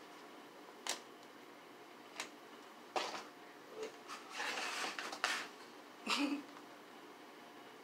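Cardboard cereal boxes being handled and shifted: a few scattered taps and a stretch of rustling around the middle.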